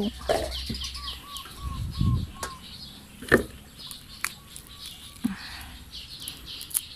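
Small birds chirping in short repeated calls, with a low thump and one sharp knock from the coconuts and plastic jug being handled.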